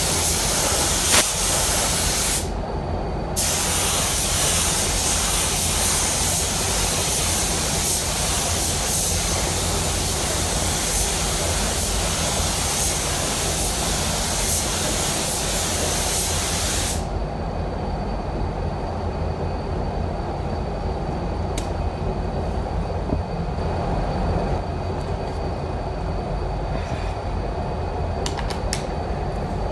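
SATA 5000 RP spray gun hissing as clearcoat is sprayed, with a short break about two and a half seconds in and stopping about seventeen seconds in. Underneath, the paint booth's ventilation runs with a steady rumble.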